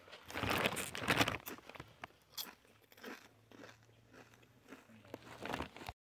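A person chewing a crunchy snack close to the microphone: a run of loud crunches in the first second and a half, then quieter, scattered chewing sounds and another louder bout near the end.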